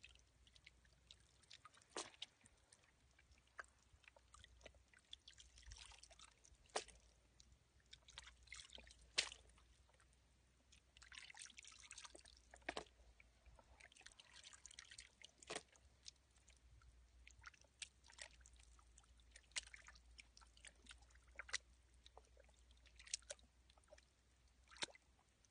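Hands squelching and scooping through soft wet mud, faint: scattered wet smacks and clicks with short sloshing stretches, irregular throughout.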